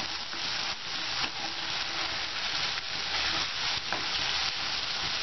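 Chicken keema with shredded cabbage and chopped capsicum sizzling steadily in a hot oiled frying pan while a spatula stirs it, with a few short scrapes of the spatula across the pan.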